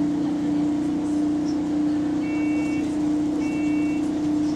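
Double-decker bus's air compressor and engine running with a steady, slightly pulsing hum. Partway through, a two-tone electronic beep sounds twice, about a second apart.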